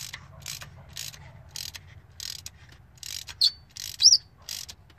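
Socket ratchet on a long extension clicking in short runs, about two a second, as the handle is swung back and forth to snug a new spark plug down into the engine's cylinder head. A bird chirps twice near the end.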